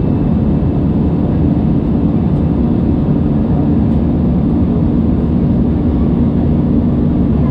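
Steady drone of an Airbus A320's jet engines and airflow, heard inside the cabin in flight, with a few steady hum tones.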